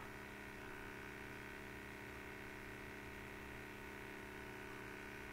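Faint steady electrical hum with light hiss: the room tone of the recording microphone.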